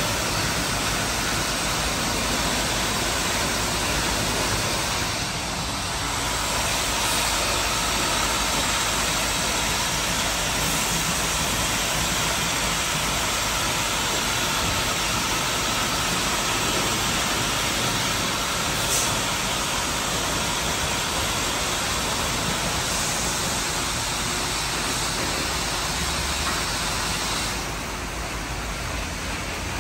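Belanger SpinLite tunnel car wash running: spinning wraparound brushes and water spray working over a car, a steady rushing noise with a faint steady whine in it, dropping a little near the end.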